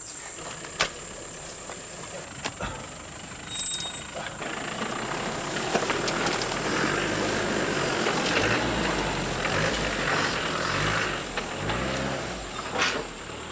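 Off-road vehicle engine running, growing louder from about four seconds in, with a few knocks before it, over a steady high insect whine.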